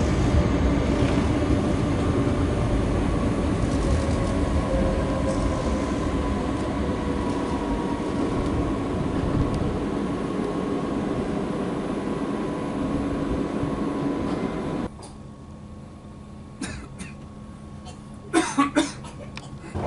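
Bombardier Intercity 2 double-deck train rolling along a station platform: steady rumble of the wheels with a steady electric whine. About fifteen seconds in, the sound cuts to the quieter steady hum inside a coach, with a few sharp knocks near the end.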